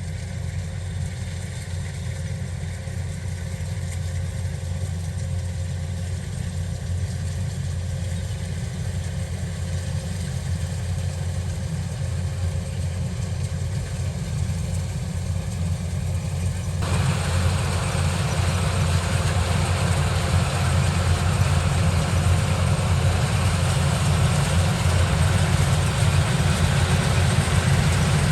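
Engine running steadily with a low hum. About 17 seconds in, a wide rushing noise starts on top of it and stays, and the whole sound grows louder.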